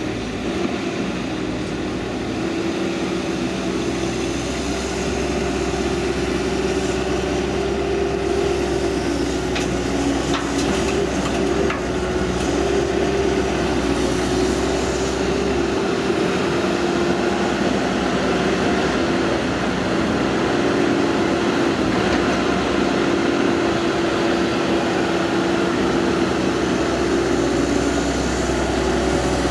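Cat 312D L hydraulic excavator's four-cylinder diesel running steadily under hydraulic load as it digs and loads dirt, with a few short knocks about ten to twelve seconds in.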